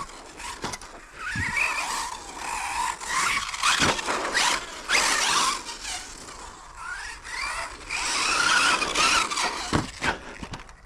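Electric RC truggy's brushless motor whining in repeated throttle bursts, the pitch rising and falling several times. Its tyres hiss and squeal on the carpet track, with a few sharp knocks along the way.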